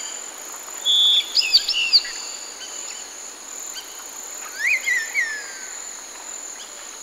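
Outdoor nature ambience: songbirds giving a few short whistled chirps with quick rising and falling pitch, about a second in and again near five seconds, over a steady high insect buzz and a soft background hiss.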